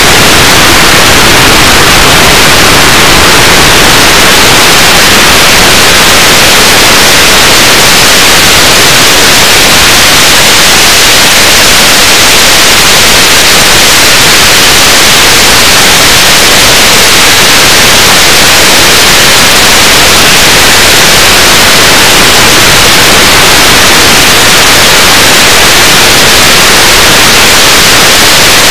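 Loud, steady hiss of static, an even white-noise rush with no tones or changes in it.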